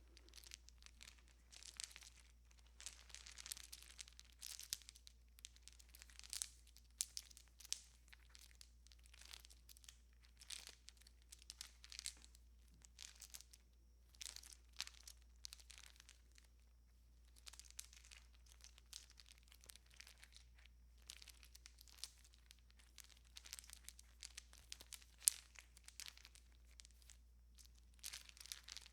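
A strand of Christmas tree lights being strung: the wire and bulbs rustle and crinkle in short, irregular bursts, with a faint steady low hum underneath.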